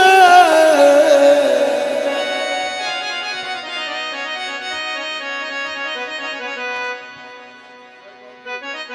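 Harmonium playing a melody of held reed notes after a sung note with vibrato trails off about a second in. The playing slowly gets quieter, dips near the end, then picks up again.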